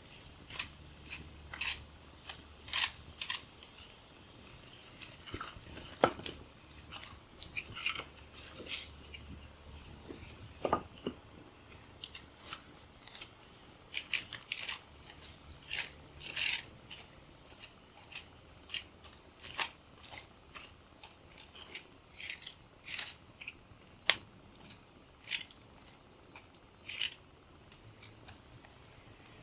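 Wood campfire crackling with irregular sharp pops and snaps, one sharper crack about six seconds in, as a stick rakes through the burning embers.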